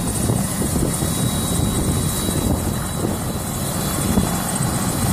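Helicopter running on the ground with its rotor turning steadily, waiting to take off.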